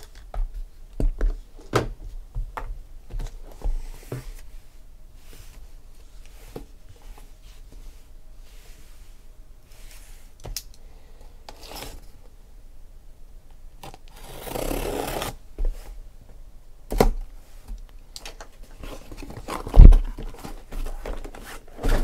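A cardboard shipping case of card boxes being handled on a table: a run of light clicks and taps in the first few seconds, a scraping, tearing noise of about a second later on, then two heavy thumps as the case is knocked down on the table, the second the loudest.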